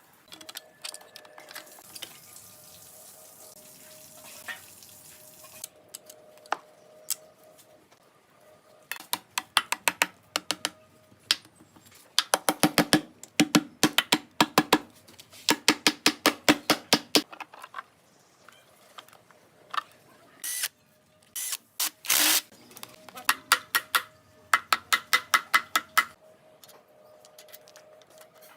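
Runs of rapid metallic clicking, several clicks a second, from hand tools at work on a car. Two short hissing bursts come about two-thirds of the way in, over a faint steady hum.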